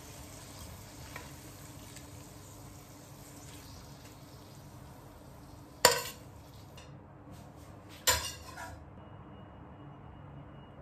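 Stir-fried tofu being scraped out of a stainless steel frying pan onto a plate with a metal spatula, with two sharp clanks of metal about six and eight seconds in.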